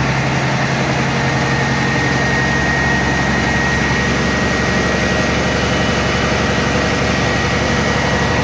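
Scania V8 diesel engine running steadily, held at raised revs while its oil pressure is checked, with a thin steady whine above the engine note.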